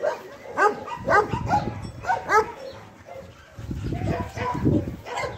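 Dog barking in a quick series, about two barks a second, for the first couple of seconds. A low rumbling noise follows after about three and a half seconds.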